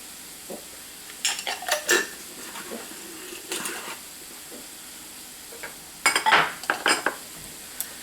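A spoon scraping and clinking against a cast iron skillet as food is stirred, in three short bouts, over a steady low sizzle of onion, garlic and spices frying.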